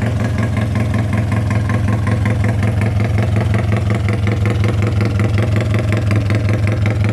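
Small motorcycle engine bored out with a 56 mm piston, running steadily at idle with a fast, even pulsing beat, the 'panting' idle of a tuned engine.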